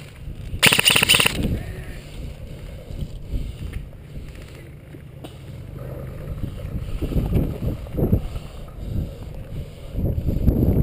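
Low rumble and rustling from wind and gear handling on a body-worn camera's microphone, with a short loud burst of noise about a second in.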